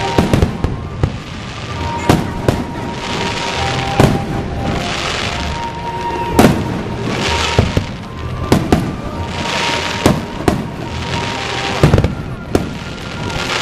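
Aerial firework shells bursting overhead: a run of sharp bangs, one every second or two, with a crackling hiss trailing after several of the bursts.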